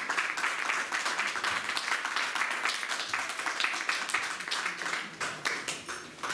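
A congregation applauding: dense, steady clapping that thins out and dies down near the end.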